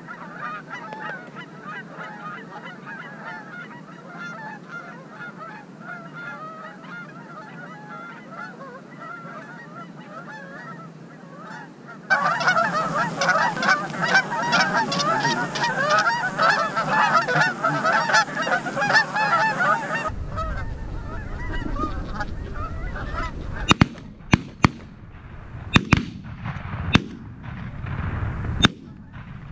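A large flock of Canada geese honking, many overlapping calls, louder partway through. Later wind rumbles on the microphone, and several sharp loud cracks come in quick succession near the end.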